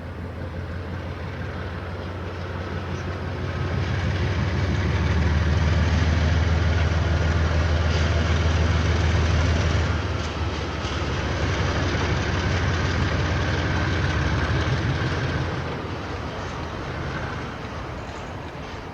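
KiwiRail diesel train passing: the locomotive's low engine rumble builds over the first few seconds and is loudest for several seconds. It dips briefly about halfway, holds a few seconds more, then fades near the end.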